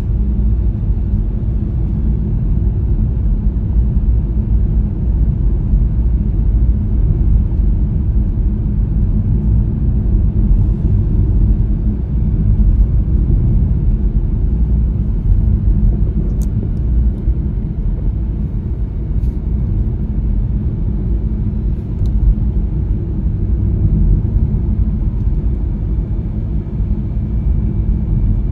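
Steady low rumble of road and engine noise inside a moving SUV's cabin, an MG Hector cruising at steady speed.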